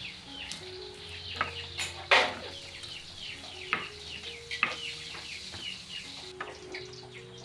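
Stone pestle grinding peanuts in a stone mortar: rough scraping and crunching, with a few sharp knocks of stone on stone, the loudest about two seconds in.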